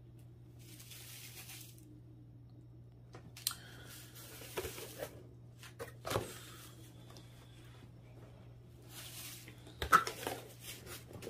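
Empty cardboard subscription box being handled and turned: brief rustles and scattered light knocks and clicks, the sharpest about ten seconds in, over a steady low hum.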